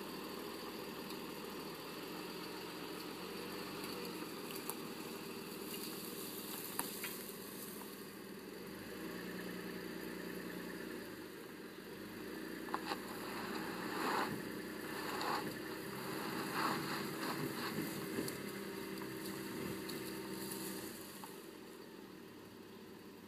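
2011 Jeep Grand Cherokee's 3.6-litre Pentastar V6 running at low speed under light, varying throttle as the vehicle climbs a dirt slope on four-wheel drive, its note shifting a few times. In the second half, sharp crackles and knocks from the worn tyres rolling over dry leaves and sticks.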